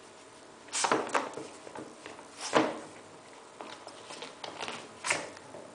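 Yorkshire terrier nosing and tugging at a rubber chicken toy on a tile floor: three short scuffing noises, the second the loudest, with light ticks in between.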